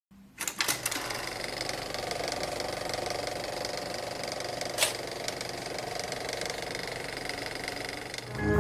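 Film projector running: a steady mechanical clatter with scattered clicks and crackle, one louder click about halfway through, dying away near the end.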